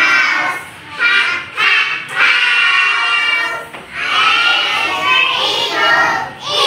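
A class of young children voicing the sounds of the alphabet's letters together in a sing-song unison chant, in short phrases with brief pauses between them.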